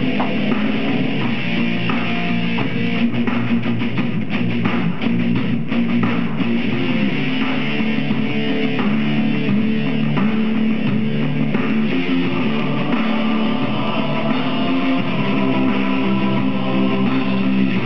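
Heavy metal music: electric guitar with a drum kit.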